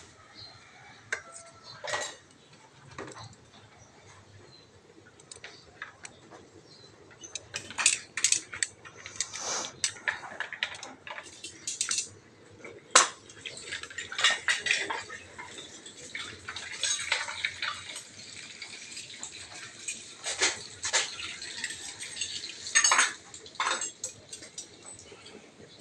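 Metal kitchen utensils and a frying pan clinking and scraping against a ceramic serving plate as cooked tuna and its sauce are dished out. A few scattered clinks at first, then frequent irregular clinks and scrapes from about a quarter of the way in, thinning near the end.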